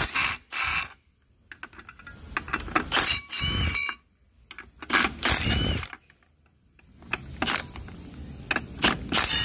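Cordless power tool driving an E10 socket on a long extension in several short bursts, about a second each, backing out the bolts of a dual-clutch transmission's clutch fork assembly.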